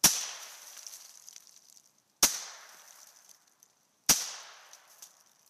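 Three shots from a Henry U.S. Survival AR-7 .22 semi-automatic rifle, about two seconds apart, each a sharp crack with an echo trailing off over about a second.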